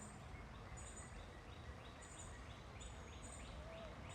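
Faint outdoor ambience: short high bird chirps repeating every half second or so, with a run of quicker rising chirps in the middle, over a low steady background rumble.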